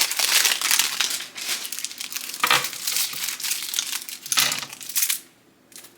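Plastic packaging crinkling and rustling as makeup brushes are handled and unwrapped, a dense run of crackles that stops about five seconds in.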